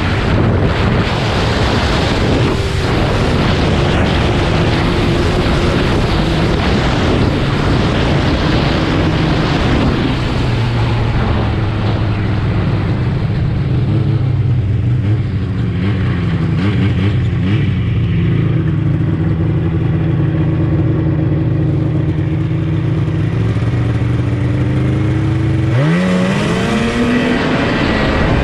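1984 Yamaha Phazer PZ480 snowmobile's two-stroke twin engine running under way across the snow, steady through the middle at a lower, even pitch. Near the end it revs up sharply, its pitch rising fast as the sled accelerates.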